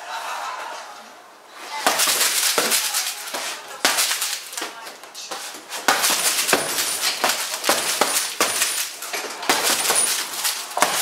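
Boxing gloves punching a heavy bag built from plastic-wrapped stacked tyres: a run of sharp slapping hits, a few a second, starting about two seconds in, with a light clinking among them.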